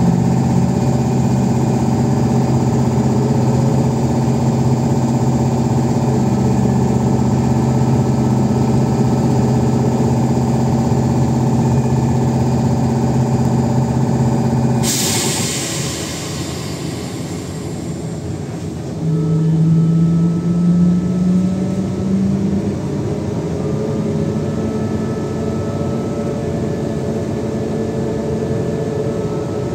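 Interior of an AKSM 321 trolleybus in motion: a steady electrical hum that stops about halfway through, at the same moment as a sudden burst of air hissing that fades over a few seconds. A few seconds later a short rising whine follows as the trolleybus picks up speed.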